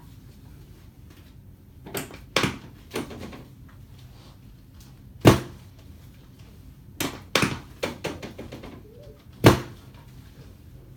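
Chiropractic drop table's drop piece clunking down again and again under quick thrusts, a series of sharp knocks, the loudest about halfway through and near the end. The thrusts are aimed at freeing a right sacroiliac joint that is stuck and not moving easily.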